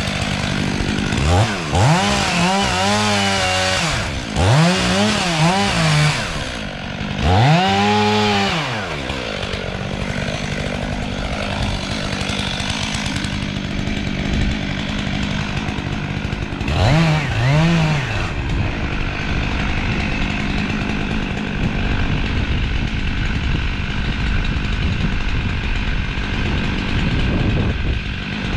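Chainsaw engine running, revved up and back down four times in the first eighteen seconds, then running steadily at higher speed.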